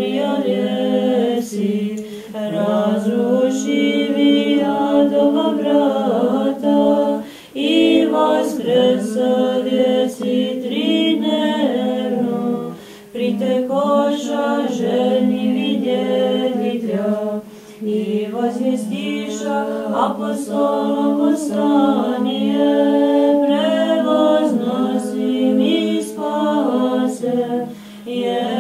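Orthodox nuns singing church chant a cappella, several women's voices in phrases over a steady held drone note, with short pauses between phrases.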